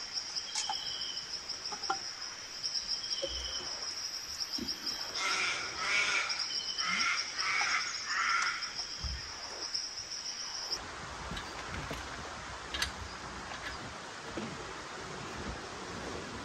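A steady high insect trill with bird chirps over it. The trill stops about two-thirds of the way through, leaving a faint, even outdoor hiss with a few small clicks.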